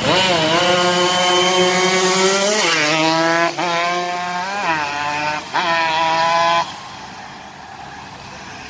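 Yamaha RX-King single-cylinder two-stroke motorcycle engine being revved in several blips, its pitch rising and falling. The sound stops abruptly about six and a half seconds in.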